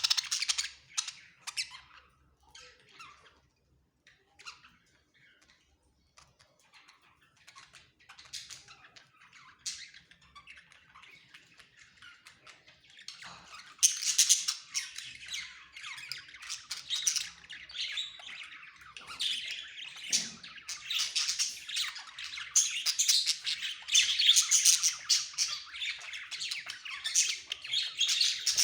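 A flock of budgerigars chattering and squawking, with scattered calls at first that swell into a dense, louder chorus about halfway through.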